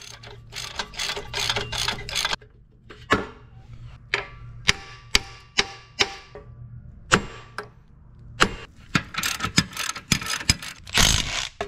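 Hand ratchet wrench clicking in quick runs as suspension nuts and bolts are worked loose, with single sharp metal knocks in between.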